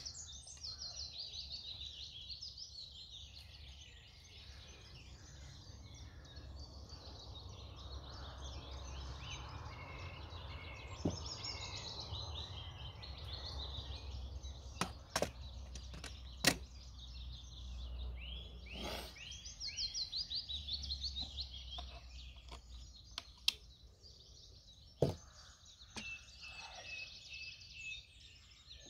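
Several small birds singing, with quick repeated trilling phrases over a low steady rumble. About half a dozen sharp clinks and knocks from aluminium camping pans being handled on the stove are heard through the middle of it.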